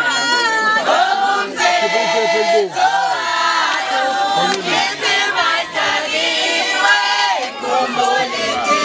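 A crowd, women's voices to the fore, singing together loudly with long held notes, over general crowd noise.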